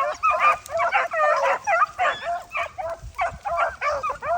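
A pack of beagles baying, with many voices overlapping in a steady, continuous chorus of short, rising and falling yelps and bawls.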